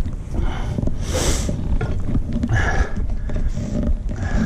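A person breathing heavily, winded from hiking uphill: three loud breaths a second or so apart, over a steady low rumble on the microphone.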